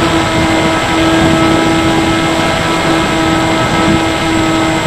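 Bixler 3 RC plane's electric motor and pusher propeller humming at a steady, reduced throttle on a landing approach, heard from a camera on the plane with loud wind rushing over the microphone.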